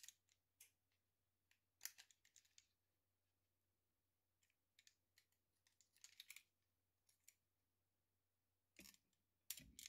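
Faint clicks and scrapes of a utility knife blade shaving excess plastic off a spliced PET filament joint, in short bursts about two and six seconds in. Two duller knocks from handling near the end.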